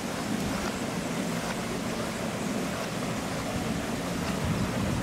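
Steady outdoor background noise: an even hiss over a low rumble, with no distinct events.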